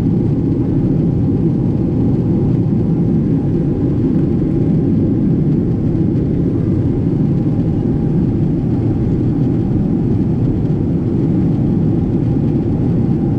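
Steady low rumble of cabin noise inside a Boeing 777-200 in flight: engine and airflow noise heard from a window seat over the wing, with a faint steady hum above it.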